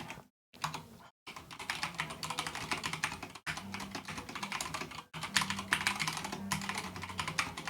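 Fast typing on an Akko 3087 mechanical keyboard with Cherry MX Red linear switches: a quick, dense run of key clacks, broken by a few brief dead-silent gaps.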